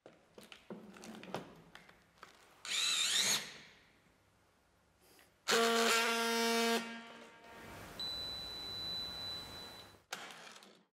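Orgapack OR-T battery-powered strapping tool tensioning a plastic strap with soft tension. Light clicks are followed by a short motor whine, then a louder motor run that fades, then a steadier run with a thin high whistle, ending with a short clack.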